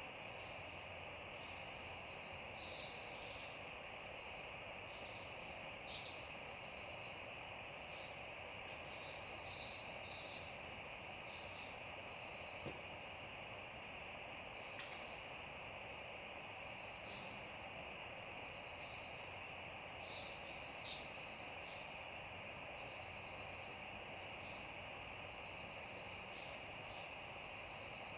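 Night chorus of crickets and other insects: several steady high-pitched trills, one pulsing in an even rhythm, with scattered chirps over a constant background hiss.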